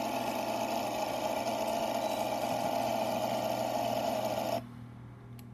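Toyan FS-V800WGPC 1/10-scale mini V8 gas engine (28 cc) running steadily, played back through a laptop's speakers. The sound cuts off suddenly about four and a half seconds in.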